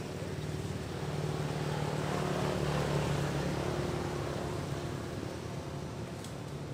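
Engine drone of a passing motor vehicle, growing louder to its peak about three seconds in and then fading away.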